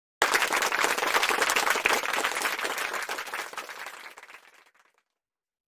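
A crowd applauding, many hands clapping. It starts suddenly and fades away over about five seconds.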